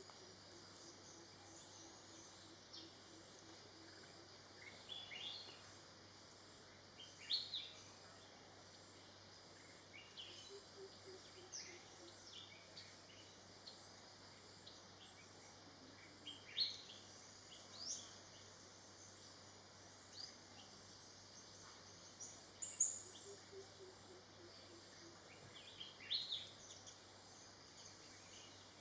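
Wild birds calling in forest: scattered short, sharp, high chirps and cheeps every second or few, a handful of them louder. Three times, a faint series of low notes falls slowly in pitch.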